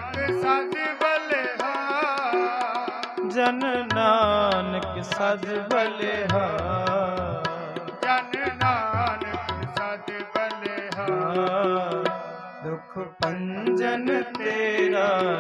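Sikh kirtan music: a man's voice singing a drawn-out, wavering melodic line without clear words over a harmonium and a steady tabla beat.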